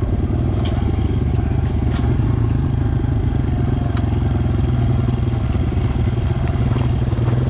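Dirt bike engine running steadily under way on a rough trail, with no big revs, and a few sharp clicks from the ride along the way.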